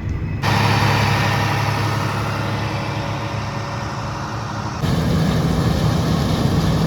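Tractor engine and machinery running steadily with dense mechanical noise. The sound jumps abruptly louder about half a second in and changes character again near five seconds.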